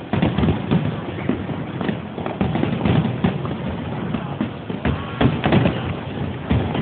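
Fireworks display: many bursts going off in quick succession, the bangs overlapping one another.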